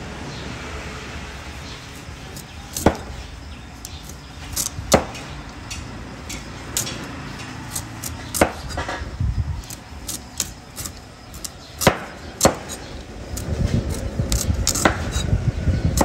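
A cleaver slicing the rind off a pumpkin on a wooden cutting board, giving irregular sharp knocks as the blade strikes the board, a few louder than the rest.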